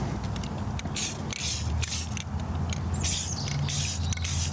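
Aerosol spray-paint can hissing in several short bursts as stripes of coyote-brown paint go on. Its tip is damaged, which makes the paint splatter.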